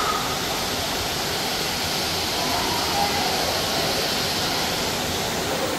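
Steady rushing ambience of an aquarium hall, with faint distant voices.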